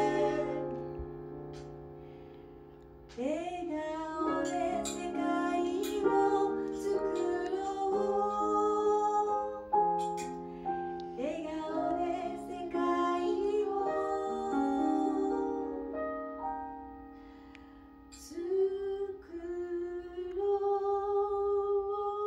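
A woman singing a slow song to electronic keyboard accompaniment. A held chord fades over the first few seconds before her voice comes in about three seconds in. The music thins out again briefly near 17 seconds, then the singing resumes.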